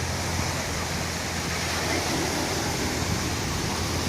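Sea surf washing on a sandy beach, a steady rushing noise with a low rumble underneath.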